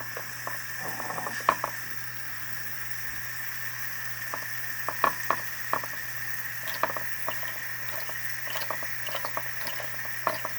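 The twin boilers of an Empire B42 model steam engine sputtering and spitting as they come up to steam: irregular sharp pops and crackles over a steady thin hiss.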